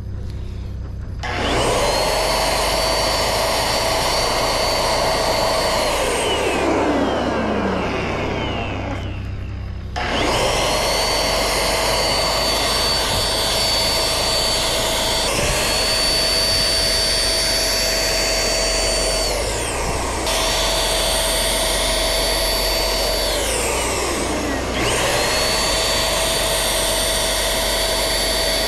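Handheld electric paint sprayer (Penkiya-kun) running with a steady high whine while paint is sprayed. It is switched off and on several times: each time its whine falls in pitch as the motor winds down, then it starts up again.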